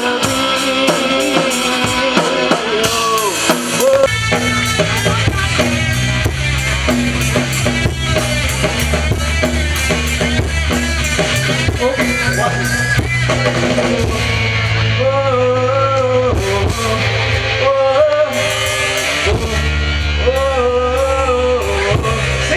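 Live rock band playing: a male lead voice singing over electric guitar and a drum kit. The band grows fuller and heavier in the low end about four seconds in.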